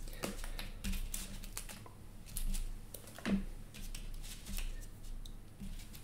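Small scattered clicks and rustles of cardstock being handled: protective backing peeled off foam adhesive squares and a card layer pressed down with the fingers, with one louder tap a little past halfway.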